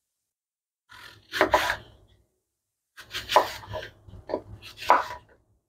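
A kitchen knife cuts through a peeled apple and strikes the wooden cutting board. The crisp cuts come in two bouts, a short one about a second in and a longer run of several strokes from about three seconds in.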